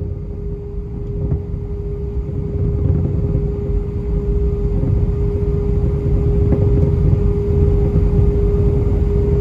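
Airbus A320 cabin noise from a seat over the wing: the jet engines run with a steady hum over a low rumble that grows louder about two to three seconds in.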